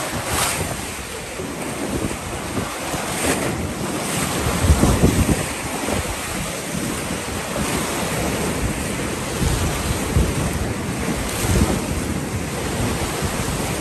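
Whitewater rapids rushing and churning around a metal-hulled river boat, with irregular low thumps as the boat meets waves and wind buffeting the microphone.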